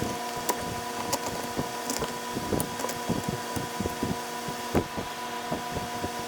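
Irregular metal clicks, taps and knocks from hand work on a chainsaw's bar and chain, over a steady background hum.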